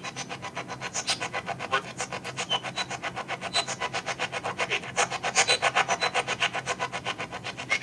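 Ghost-box sweep from the GhostTube app playing through smartphone speakers: a fast, even train of rasping static pulses, about six a second.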